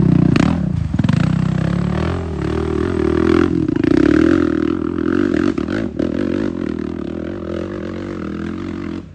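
Quad ATV engine revving hard under load as it climbs a steep dirt hill, the pitch rising and falling with the throttle, and growing fainter over the last few seconds as the quad pulls away up the slope.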